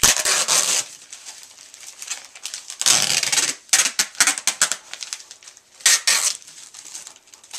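Plastic sleeves and cardboard backing boards being handled: crinkling rustles and sharp clicks in several bursts, loudest at the start and about three seconds in, with a shorter burst about six seconds in.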